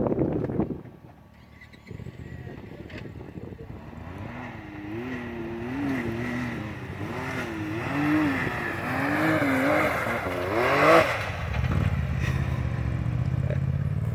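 A side-by-side UTV engine revving up and down over and over as the machine works at a snow drift, climbing sharply in pitch about eleven seconds in, then dropping to a lower, steadier drone.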